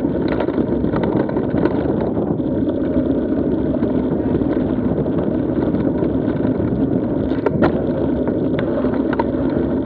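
Mountain bike rolling over a dirt and gravel trail, heard from a camera mounted on the bike: a steady rumble of tyre and trail noise with wind on the microphone. A few sharp clicks and rattles come about seven and a half seconds in.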